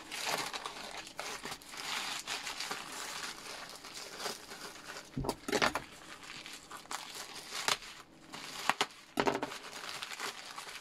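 White plastic mailer bag crinkling and rustling as it is cut open with a kitchen knife and torn apart by hand, with several louder rips a little past halfway and again later on.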